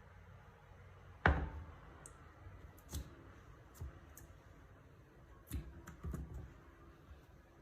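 Slime being handled: a few scattered sharp sticky clicks and pops, the loudest about a second in and a small cluster of softer ones a little past the middle.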